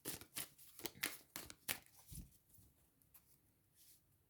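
Tarot cards being shuffled: a quick run of crisp card clicks for about two seconds, then only faint, scattered handling sounds.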